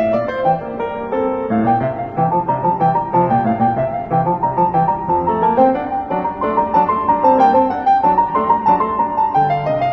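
Background music: solo piano playing a quick run of notes.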